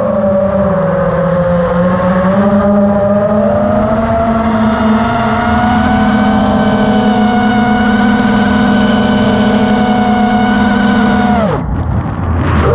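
Brushless motors of an FPV racing quadcopter (Lumenier RX2206 2350KV, spinning DAL Cyclone 5050 props) heard from the camera on the quad: a loud, steady buzzing whine whose pitch wavers slowly with throttle. Near the end it drops away sharply as the throttle is cut, then climbs back about a second later.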